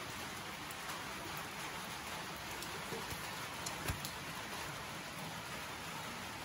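A steady, even hiss like rain or background noise, with a single light knock about four seconds in.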